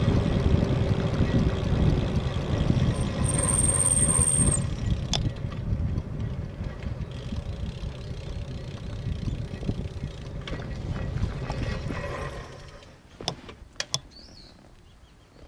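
Wind rumbling on the microphone of a camera on a moving bicycle, with a brief high whistle a few seconds in. The rumble drops away as the bike comes to a stop, followed by a few sharp clicks.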